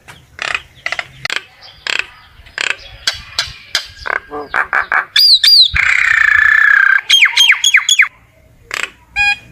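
Common myna singing its flock-calling song: a run of short harsh chattering calls about every half second, then two quick falling whistles, a long buzzy grating note, and a string of about five falling whistled notes.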